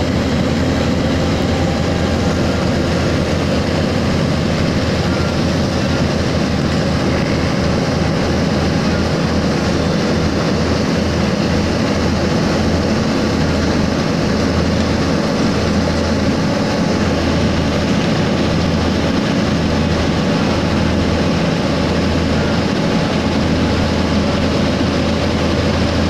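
Heavy diesel engine of a road roller running steadily while the machine travels, a constant loud drone with a strong low rumble.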